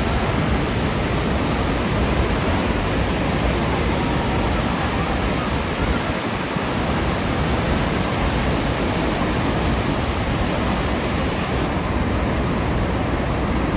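Niagara Falls: a great volume of water plunging over the falls, heard as a steady, dense rush of noise that doesn't let up.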